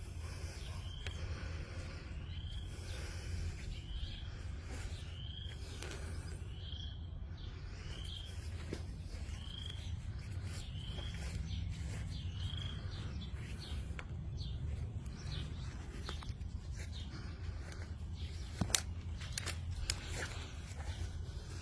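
A songbird repeating a short chirp about once a second for roughly the first twelve seconds, over a steady low rumble. A couple of sharp clicks sound near the end.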